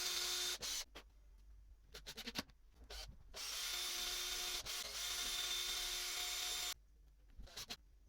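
A power drill running in two spells: a short one at the start and a longer one of about three seconds from the middle, with a brief dip partway through. Between them come a few small clicks and knocks, most likely from driving fixings while mounting the casters on MDF blocks.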